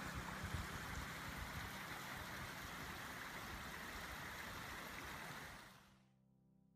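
Creek water running steadily through an open channel in the ice, a rushing hiss that fades out about five and a half seconds in.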